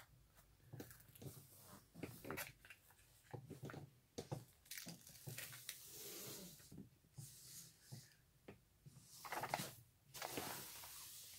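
Quiet rustling and crinkling of a large clear plastic sheet being handled and lifted, with scattered small clicks and a longer rustle of the sheet near the end.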